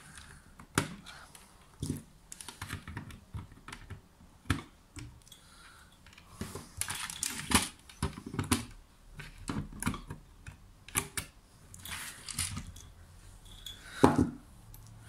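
Irregular small clicks and taps of wire, plastic pegs and pliers on a plastic pegboard jig as a bent-wire shape is worked loose and lifted off the pegs, with a louder knock near the end.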